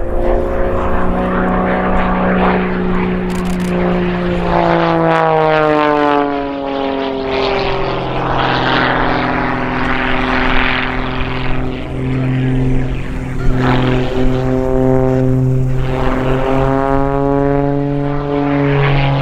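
Pitts aerobatic biplane's engine and propeller running through aerobatic manoeuvres, the pitch sliding down about five seconds in and climbing again near the end.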